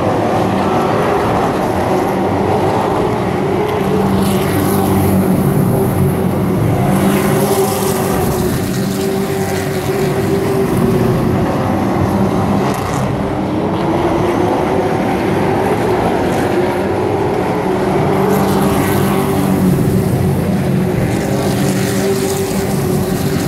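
Pack of short-track race trucks running hard around the oval, their engines a steady loud drone. The pitch rises and falls as trucks sweep past one after another, several times.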